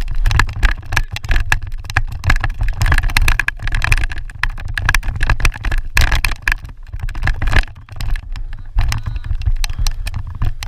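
Steady low rumble of wind buffeting the microphone, over a dense run of irregular clicks and knocks, like equipment clattering during lacrosse play.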